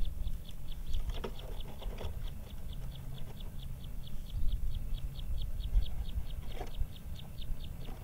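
An animal's rapid, evenly spaced high chirps, about five a second, over a low rumble of outdoor noise, with a few faint taps.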